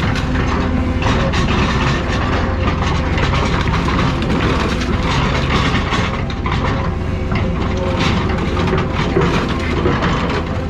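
Heavy demolition machine tearing apart a car: a steady low engine rumble under a continuous run of metal crunches and clanks.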